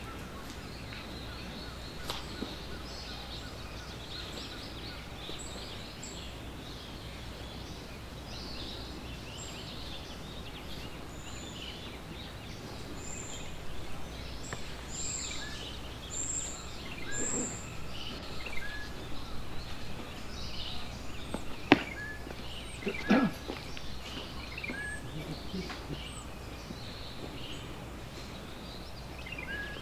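Outdoor ambience with small birds giving short, repeated high chirps over a steady low hum. A sharp click sounds a little past the middle, followed a second later by a few short knocks.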